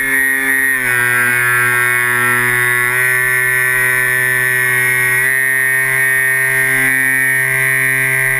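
Twin brushless electric motors and propellers of a Multiplex Twinstar RC plane whining, heard from a GoPro mounted on the plane. The whine drops in pitch about a second in and steps back up twice as the throttle changes.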